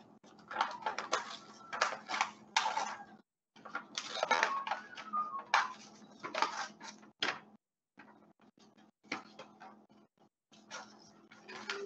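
Red textured paper being torn by hand into small pieces: a run of short, irregular rips with brief pauses between them.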